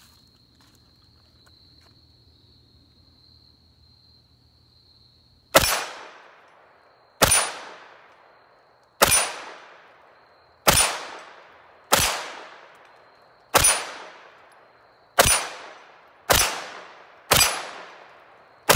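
CZ Scorpion EVO 3 pistol-caliber carbine firing 9mm Sig V-Crown 124-grain hollow points: ten single shots at a steady pace, about a second and a half apart, starting about five and a half seconds in.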